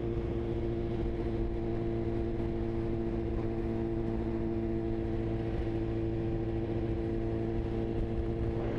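Sport motorcycle engine running at a steady cruising speed, heard from a camera mounted on the bike; the engine note holds one constant pitch under steady throttle.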